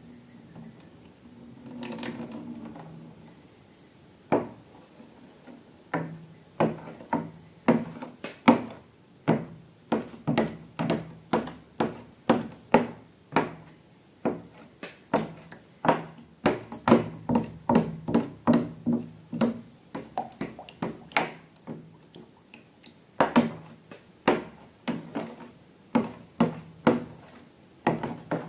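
Slime being squeezed and worked by hand: an irregular run of sticky clicks and pops, about one or two a second.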